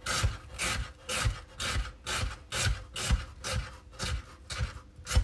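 Kitchen knife slicing a red onion into thin strips on a wooden cutting board: steady strokes about two a second, each cutting through the onion and knocking on the board.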